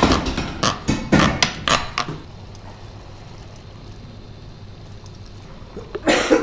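Metal spoon knocking and scraping against a frying pan as risotto is stirred: a quick run of sharp clinks in the first two seconds. Near the end a man clears his throat.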